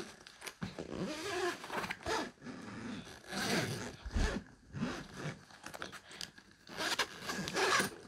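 Zipper on a soft fabric suitcase being pulled closed in a series of short rasping drags.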